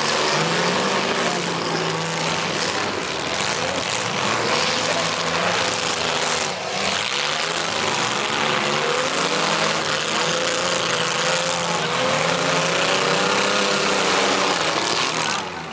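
Several demolition derby cars' engines running and revving together, their pitch rising and falling over a loud, steady din.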